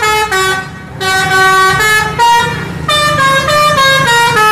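Tour bus's multi-tone musical 'telolet' horn playing a melody of stepped notes, over the bus's engine running.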